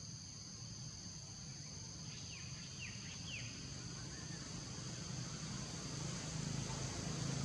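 Tropical forest ambience: a steady high insect drone, four quick falling chirps about two to three and a half seconds in, and a low rumble that grows louder near the end.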